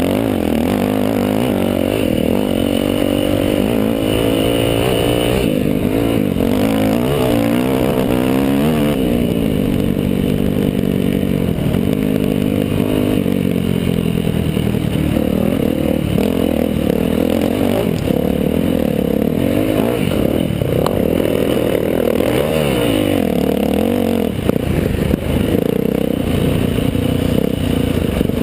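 Dirt bike engine running hard under the rider, its pitch rising and falling again and again as the throttle is worked over rough ground, heard close up with rattling from the bike.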